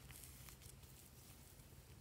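Near silence: slime being handled very softly, giving a few faint clicks about half a second apart over a low steady hum.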